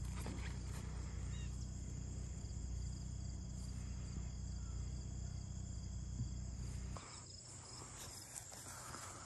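Insects chirping steadily in the grass, over a low steady rumble that cuts off abruptly about seven seconds in.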